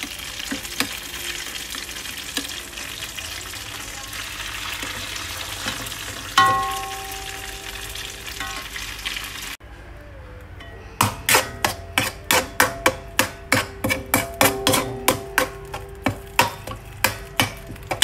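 Food sizzling in oil in a stainless honeycomb frying pan, with a single ringing metal clank about six seconds in. After a short break, a metal spatula stirs in the pan, knocking against it two or three times a second with ringing clinks over the frying.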